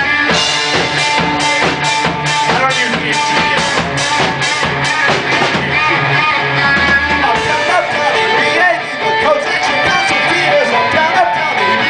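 Live rock band playing, with electric guitar and a drum kit. A steady drum beat drives the first half, then drops away about halfway through, leaving wavering, bending guitar notes.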